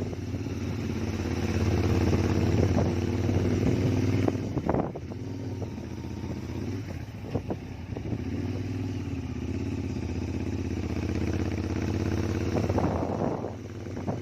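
Royal Enfield GT650 parallel-twin engine running through a Gursewak aftermarket exhaust while riding. It pulls under throttle, then drops off about four and a half seconds in with a few sharp cracks. After that it runs steadily at lower revs, with small swells in pitch.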